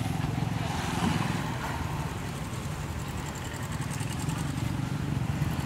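A motor vehicle engine running steadily, a low rumble with a fast even pulse.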